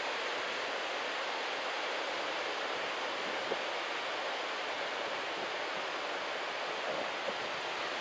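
Waist-high surf breaking and washing up a sandy beach: a steady, even hiss of waves.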